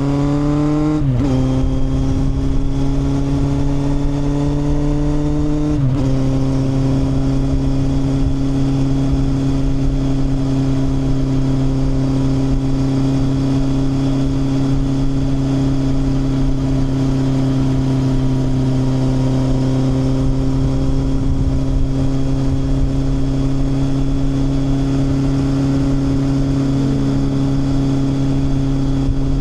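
Kawasaki motorcycle engine pulling away, shifting up about a second in and again around six seconds, then cruising at a steady speed.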